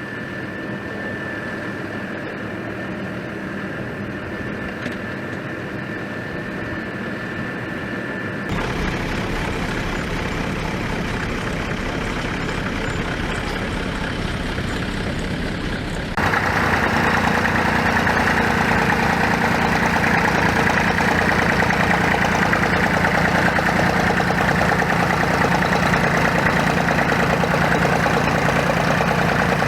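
Engines running steadily, heard in three stretches that change abruptly about 8 and 16 seconds in. The last stretch is the loudest, with a steady low hum.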